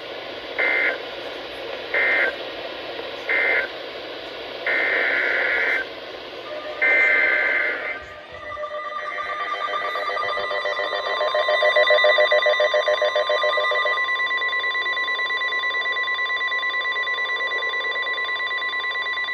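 NOAA Weather Radio emergency alert tones: three short bursts of SAME digital data, the end-of-message code closing the severe thunderstorm warning, then longer header bursts. From about 8 seconds in comes a long, steady, pulsing alert tone announcing the next warning.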